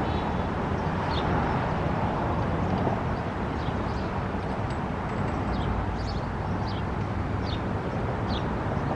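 Steady outdoor traffic noise with a bird's short, falling chirps repeating about once a second.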